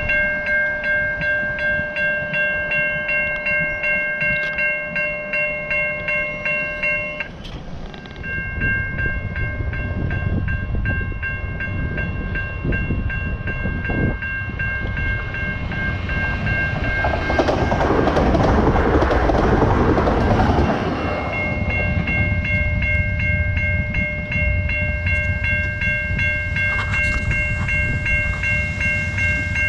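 Railway level-crossing warning bells ringing steadily, about two dings a second. About two-thirds of the way in, an electric multiple-unit train passes close by for a few seconds, and its rushing noise covers the bells.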